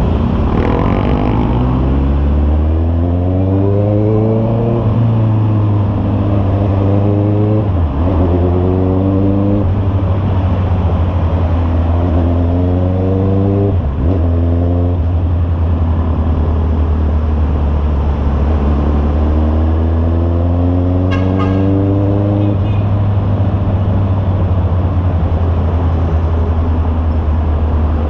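Honda CB650R's inline-four engine through an aftermarket Imba exhaust, accelerating repeatedly under way. Its pitch climbs several times, with short breaks at gear changes about eight and fourteen seconds in.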